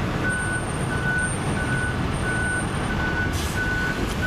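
A truck's reversing alarm beeping steadily at one pitch, about one and a half beeps a second, over a low traffic rumble.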